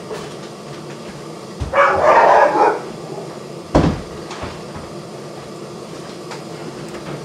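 A door being closed: a soft bump, then a loud noisy burst lasting about a second, then a single sharp knock a little after halfway.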